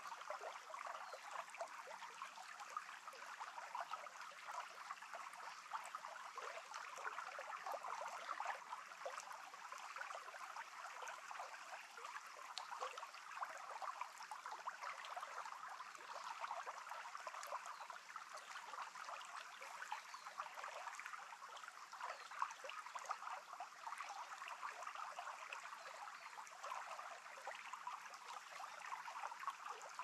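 Small stream flowing steadily, a continuous faint babbling of water with many tiny splashes and gurgles.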